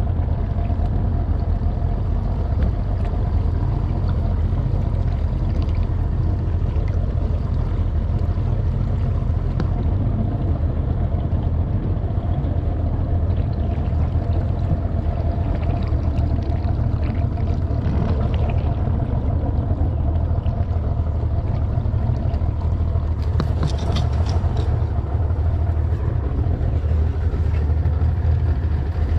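Boat's outboard motor running steadily while the boat moves over the water, with a few brief knocks about three-quarters of the way through.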